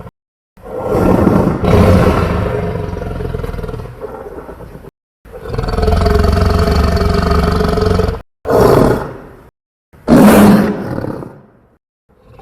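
A series of homemade dinosaur roar sound effects: four or five separate roars, each cut off into dead silence before the next. The longest comes first, and the last is a short roar that fades out.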